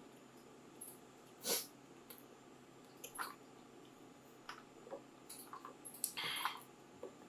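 Close-miked mouth sounds of eating: scattered wet smacks and clicks of chewing. A louder smack comes about one and a half seconds in, and a longer noisy one just after six seconds.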